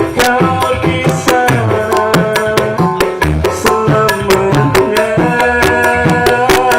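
Band music: an instrumental passage with sustained pitched notes over a busy drum rhythm of many quick strokes, without singing.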